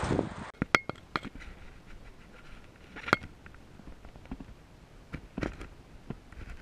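A handful of sharp plastic clicks and knocks, the loudest about three seconds in, with faint rustling between, from hands handling a Phantom quadcopter drone, its case, and the remote controller with a tablet.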